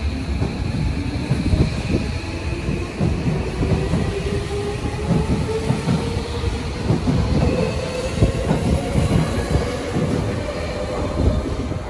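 Tobu 70000-series electric train pulling out of a station and gathering speed. Its traction motors give a whine that rises steadily in pitch, over the rumble and clatter of the wheels on the rails.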